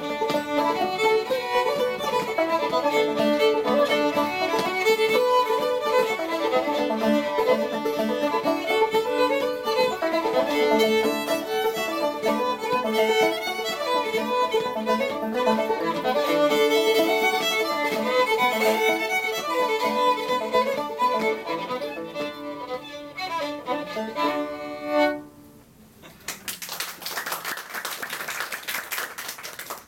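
Old-time fiddle tune played on bowed fiddle with banjo accompaniment, ending with a final accented note about 25 seconds in. Clapping follows for the last few seconds.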